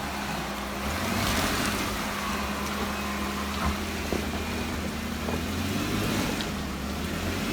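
2018 Jeep Wrangler JKU Sport's V6 engine running steadily at low revs while the Jeep crawls over a rough trail. The engine note strengthens about a second in, and there are a few light knocks in the middle.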